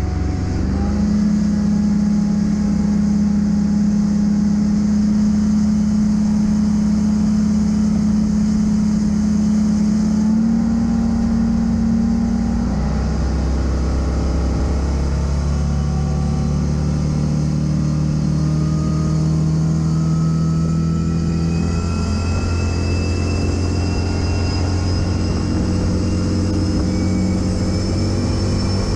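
Procharger-supercharged 572 big-block V8 in a single-engine V-bottom speedboat running hard as the boat accelerates from about 37 to 100 mph. Its tone shifts abruptly a few times in the first half, and a high whine climbs steadily in pitch through the second half.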